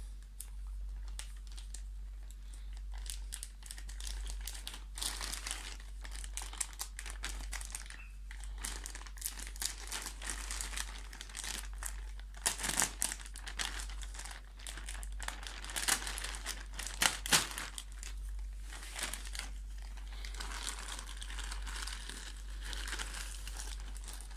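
Plastic courier mailer bag being handled and opened: continual crinkling and crackling of the plastic film, with sharper, louder crackles about halfway through and again a few seconds later.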